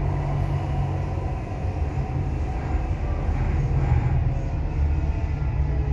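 Dubai Metro train running, a steady low rumble heard from inside the carriage.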